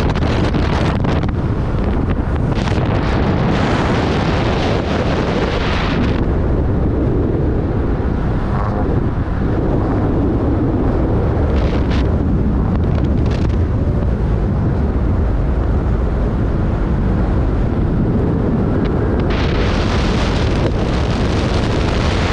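Wind buffeting the camera microphone on a moving car: a loud, steady low rumble, with harsher gusts of hiss in the first six seconds and again near the end.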